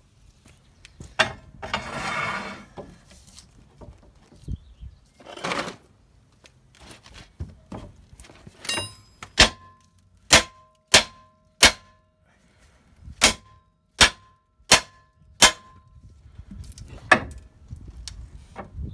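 A hammer striking the steel front hub knuckle about eight times, sharp blows with a short metallic ring, then one more a little later: knocking the knuckle to free the lower ball joint after its pinch bolt was removed. Earlier there are two shorter rattling noises.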